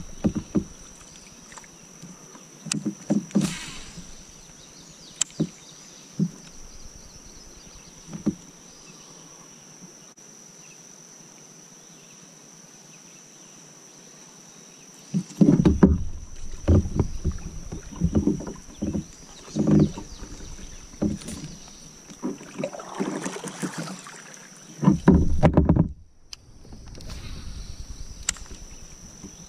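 Knocks, bumps and rubbing from close handling in an inflatable kayak while a fishing rod is worked: scattered bumps at first, then a busier, louder stretch past the middle. A steady high insect drone runs behind.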